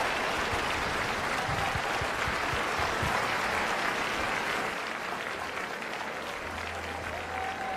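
Applause from a small group, easing off a little about halfway through.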